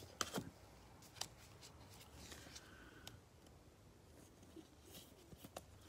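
Faint rustles and a few light clicks of trading cards being handled in gloved hands, a couple near the start and several near the end.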